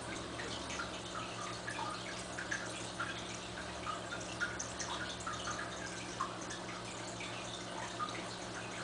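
Aquarium water bubbling and dripping in many small, quick plinks over a steady low hum.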